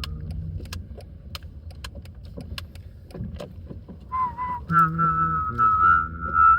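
A low steady rumble with scattered sharp clicks. About four seconds in, a person starts whistling a chime melody, the Joetsu Shinkansen folk-song chime, with a hummed voice sounding together with the whistle.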